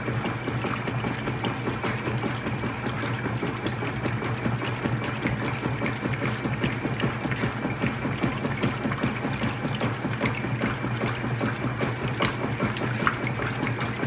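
GE WCSR2090D2WW top-load washing machine agitating a large load: the drive runs with a steady low hum while water churns and sloshes around the agitator.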